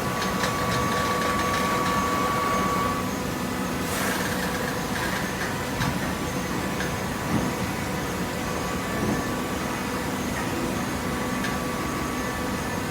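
Hydraulic carton baler running: a steady motor and pump hum with a held whine, and a sharp knock about four seconds in.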